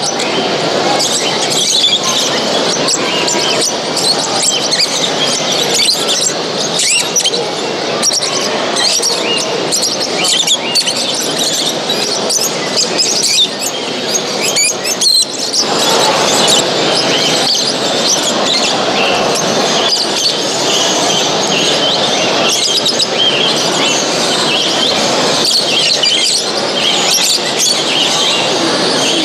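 Many caged songbirds chirping and singing at once: a dense, continuous chorus of short high calls over a low hubbub.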